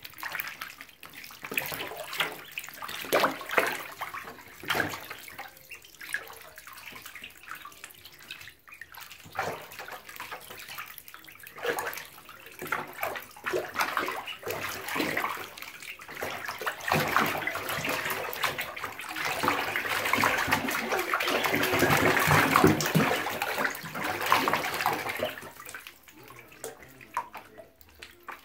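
Water splashing and sloshing in a bathtub as a group of week-old ducklings paddle and dabble in shallow, bubbly bath water. The splashing is irregular, grows denser and louder about two-thirds of the way in, then dies down near the end.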